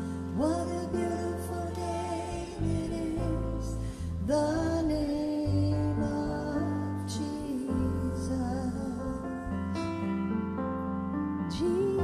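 Female worship singers holding long sung notes over sustained keyboard chords, a new sung phrase coming in about every four seconds.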